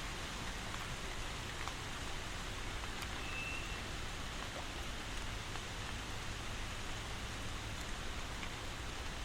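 Steady rainfall, an even hiss with scattered faint drop ticks. A short high tone sounds briefly about three seconds in.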